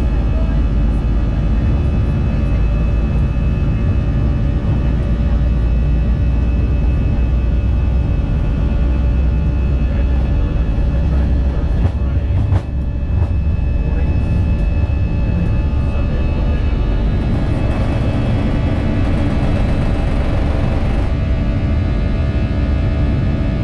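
Airbus A320-family jet's CFM56 turbofan engines at takeoff thrust during the takeoff roll and liftoff, heard inside the cabin just ahead of the engine. A deep steady rumble runs under a cluster of steady fan buzzsaw tones. There is a brief knock about halfway through, and a rush of hissing noise for a few seconds near the end.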